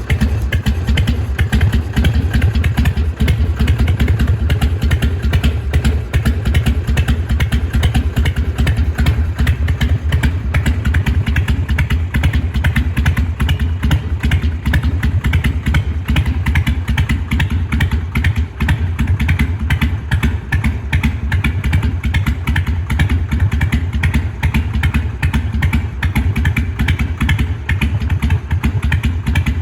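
Harley-Davidson Sportster 883R's air-cooled 45-degree V-twin idling steadily with the uneven 'potato' beat of its exhaust, running on a freshly rebuilt carburettor.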